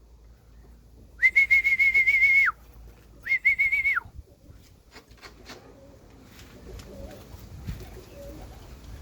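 Two loud, high whistle blasts from the pigeon flyer, each a steady tone with a slight warble that rises in and drops off: a longer one about a second in and a shorter one soon after. They signal the Birmingham roller kit to stay around the house. Quieter clicks and faint pigeon coos follow.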